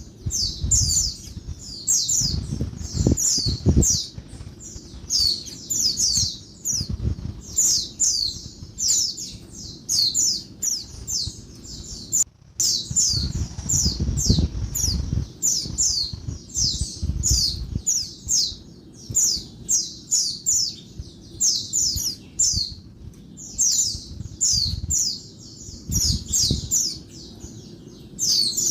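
Female white-eye (pleci) giving noisy, rapid chattering calls: short high notes, each falling in pitch, several a second in clusters, with a low rumble underneath that swells near the start and about halfway through.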